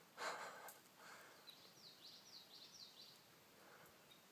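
Faint outdoor quiet with a brief rustle just after the start, then a songbird singing a quick run of high, falling notes for about a second and a half.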